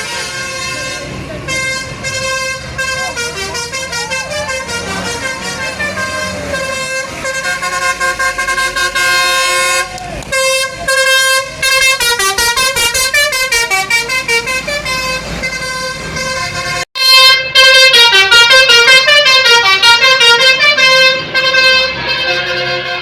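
Bus 'telolet' multi-tone air horn playing a tune: several horn notes switching rapidly back and forth over a steadier held tone. It cuts out briefly about seventeen seconds in, then comes back louder.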